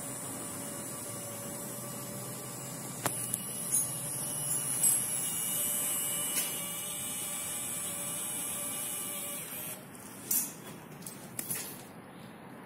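Steady electric machine hum with faint whining tones, broken by a few sharp clicks and knocks; the hum drops away about ten seconds in, with a few more knocks after.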